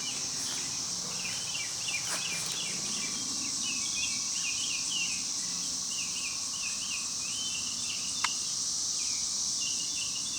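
Steady high-pitched insect chorus, like crickets, with many short chirps over it throughout and a single faint click about eight seconds in.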